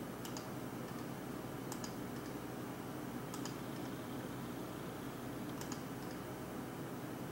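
Computer mouse clicking four times, each click a quick press-and-release pair of ticks, over a steady low hum.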